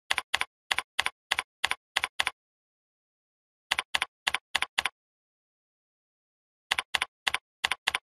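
Computer keyboard keystrokes clicking in three short runs of typing, about four keys a second, separated by pauses.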